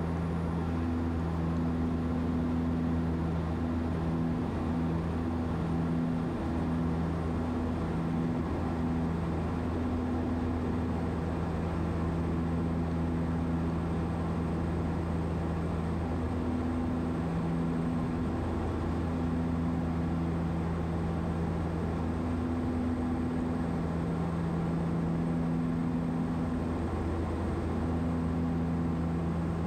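Cockpit sound of a DHC-6 Twin Otter in level flight: its two PT6A turboprop engines and propellers drone steadily, a low hum whose higher tones swell and fade every few seconds, over a steady rush of air.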